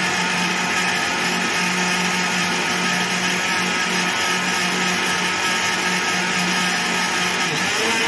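Electric countertop blender running steadily, blending a thin semolina, yeast and water batter: a constant motor hum under the whir of the blades, cutting off abruptly at the very end.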